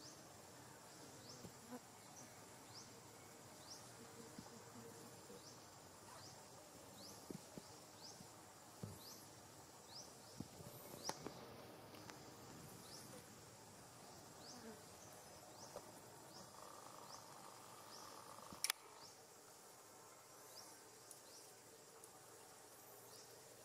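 Quiet forest ambience: a thin, high chirp repeats about once a second, with scattered soft clicks and one sharp click near the end.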